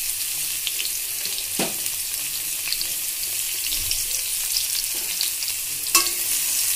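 Chopped onions sizzling in hot mustard oil in a metal kadai. Near the end a sharp clack as a spatula strikes the pan and the stirring begins.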